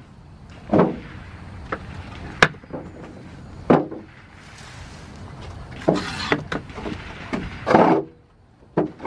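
Palmetto State Armory AK pistol firing single aimed shots at steel targets, several sharp reports a few seconds apart.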